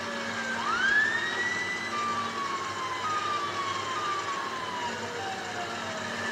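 Messed-up police car siren: one rising whoop about half a second in, then a run of short tones that each slide down in pitch.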